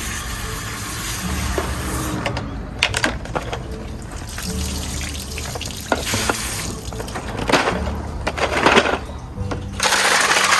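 Background music with steady low notes, over water splashing and running, with irregular bursts of scrubbing as pottery shards are washed.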